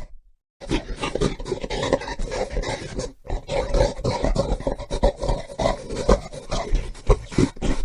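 Gorilla calling in a run of short, repeated loud sounds, broken by a brief silence about three seconds in.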